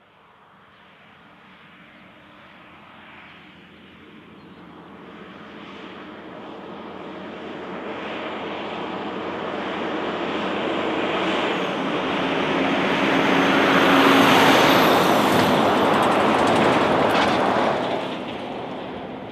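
A triple road train, a diesel prime mover hauling three trailers, passing by at highway speed. Its engine and tyre noise grows steadily louder as it approaches, is loudest for a few seconds past the middle, then drops away sharply near the end.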